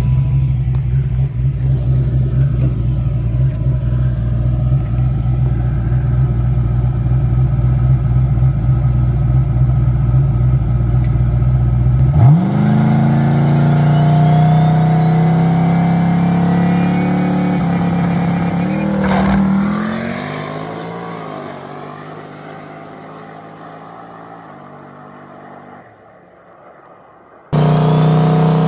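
Turbocharged 5.3 LS V8 drag car sitting at a steady, loud run, then launching about twelve seconds in: the revs climb sharply with a rising turbo whine, and the sound fades as the car pulls away down the road. Near the end it cuts abruptly to another engine running.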